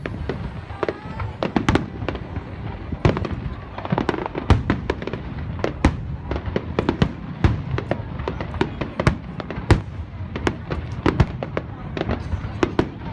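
Aerial fireworks display going off: a dense, irregular run of sharp bangs and cracks, several a second, over a steady low rumble.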